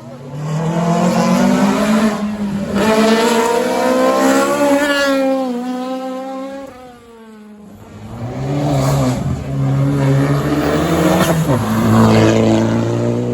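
A rally car's engine at hard throttle going past, its pitch climbing and then dropping away about six seconds in. The engine sound builds again from about eight seconds in, with sudden pitch steps like gear changes.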